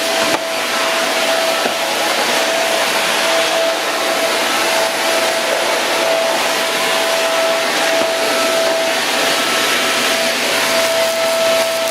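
Woly corded cyclone stick vacuum running steadily as its floor head is pushed over a hard floor: a constant rush of air with a steady whine.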